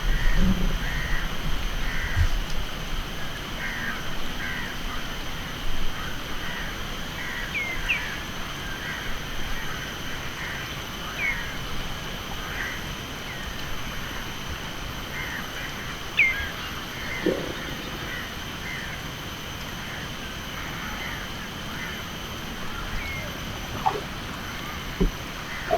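Estuarine crocodile giving a faint, low burp-like call, a submissive signal as a larger crocodile swims past. It sounds under constant short bird chirps and calls and steady high insect tones.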